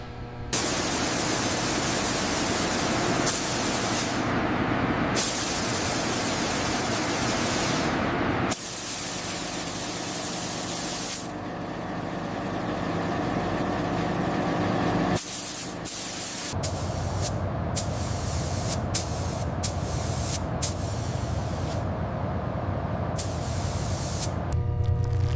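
High-pressure spray hissing in long bursts, stopping briefly twice, then going on quieter and duller. In the last part a lower, steady mechanical rumble takes over, with scattered sharp clicks.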